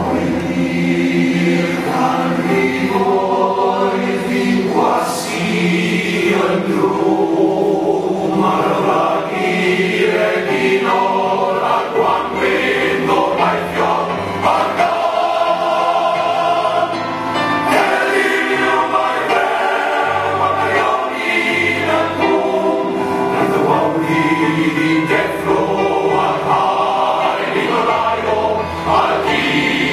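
Welsh male voice choir singing sustained notes in harmony, with piano accompaniment. The singing comes in at full strength at the very start.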